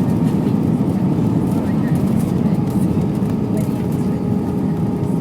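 Steady cabin noise inside an Airbus A320 airliner: the IAE V2500 engines and rushing airflow make a low, even rumble with a faint steady hum on top.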